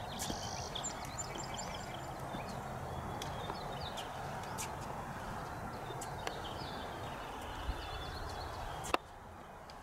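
Outdoor ambience with birds chirping and scattered light taps from a rollator walker's wheels and footsteps on a concrete sidewalk. It turns quieter near the end.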